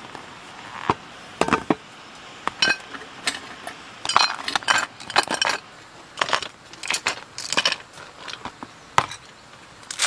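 Glass and other hard items clinking and knocking as they are handled and set down, some strikes with a short ring, with rustling in between. The strikes come irregularly, bunched around one and a half, four to five and a half, and six to eight seconds in.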